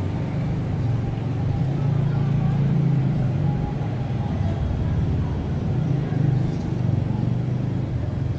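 Passenger train rolling away over the tracks and switch points: a steady low rumble of wheels on rail from its last coaches.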